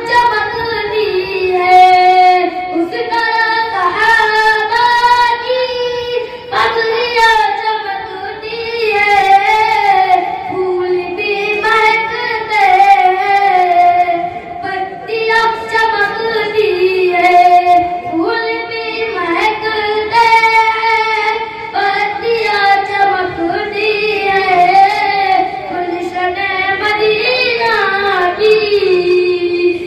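A boy singing an Urdu nazam (devotional poem) solo into a microphone, with long held notes that waver and glide in ornamented turns.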